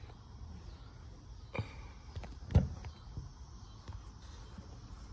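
A few sharp knocks over a steady low background rumble, the loudest about two and a half seconds in.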